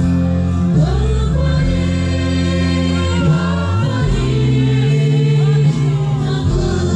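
A large congregation singing a gospel worship song together over amplified band music, with long held bass notes under the voices.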